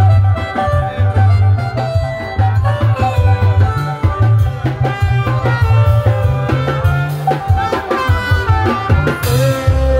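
Live band music played loud through a PA system: a heavy bass line pulses under drums and melodic lead instrument lines.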